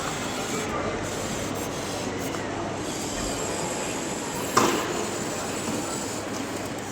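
Automatic coffee vending machine running, a steady even noise with one sharp knock about four and a half seconds in.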